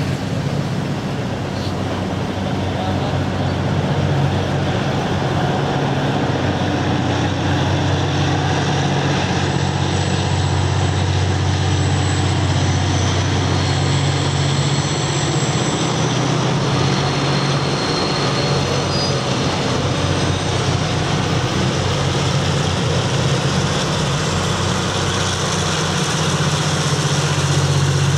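Three KiwiRail DC-class diesel-electric locomotives working hard as they haul a container freight up the bank. Their engines make a steady low drone that builds over the first few seconds as the train approaches round the curve.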